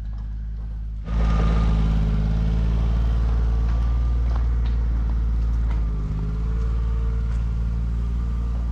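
An engine running steadily, its hum jumping suddenly louder about a second in and then holding.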